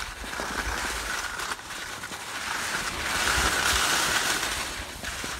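Skis scraping and sliding over firm, bumpy snow on a downhill run, with wind rushing over the microphone; the hiss grows louder about three seconds in.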